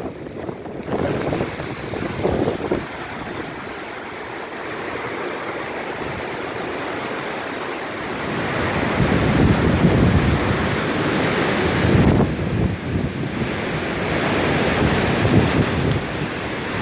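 Hurricane wind gusting and buffeting the microphone, rising to stronger gusts partway through.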